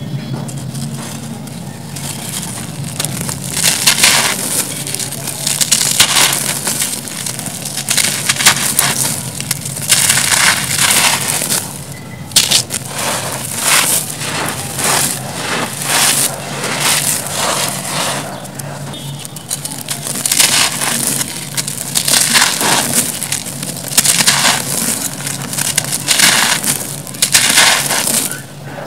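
Hands crushing and crumbling soft, dry grey concrete: gritty crunches, with crumbs and dust sifting and pouring through the fingers, in irregular bursts.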